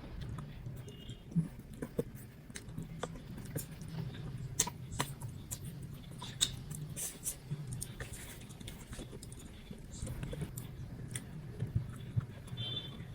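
Close-miked chewing of rice and braised pork ribs: a steady run of small sharp mouth clicks and smacks.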